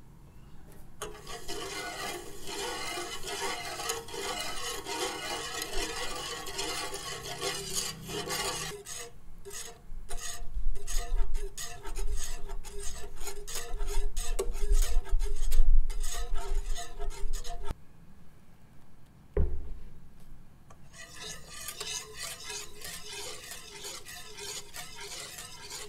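Stainless steel wire whisk stirring a thin milky pudding mixture in a nonstick pot, its wires scraping and swishing against the pan. The strokes turn quicker and heavier in the middle, there is a single thud a little past two-thirds of the way, and then steady whisking again.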